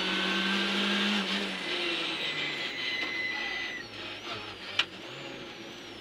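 Small rally car's engine heard from inside the cabin, holding a steady note and then falling away as the car comes off the throttle and slows. A single sharp click about five seconds in.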